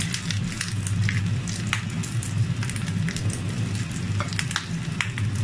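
Mashed salted egg yolk sizzling in hot oil in a frying pan, with many sharp scattered pops and crackles as it is stirred with a spatula. A steady low hum runs underneath.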